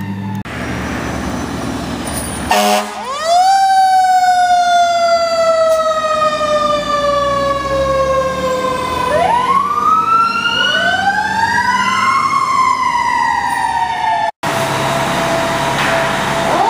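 Fire engine siren: it sweeps up to a high wail and then slowly falls in pitch over several seconds, then winds up again and falls a second time. Truck and road noise are heard before the first wind-up.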